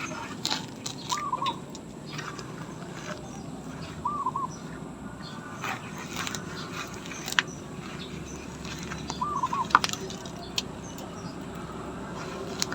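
Crackling and snapping of weeds being pulled by hand from potted plants, with scattered sharp clicks. A bird's short two-note call repeats every few seconds.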